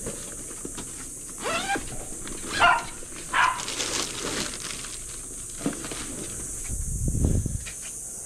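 A dog barking a few times, short calls that bend in pitch, then stopping; a low rumble follows near the end.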